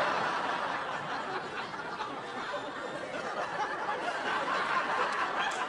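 Studio audience laughing as a crowd, loudest at the start and easing slightly after the first second.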